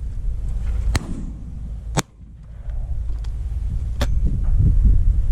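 Shotgun shots: three sharp reports about one, two and four seconds in, the middle one the loudest. Wind rumbles on the microphone throughout.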